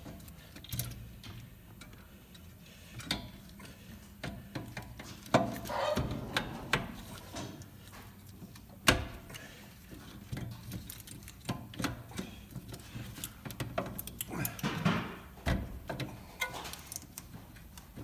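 Scattered metallic clicks, knocks and scrapes as a rear wheel hub-and-bearing assembly is worked by hand over the axle shaft and seated into the knuckle, with sharper knocks about five and nine seconds in.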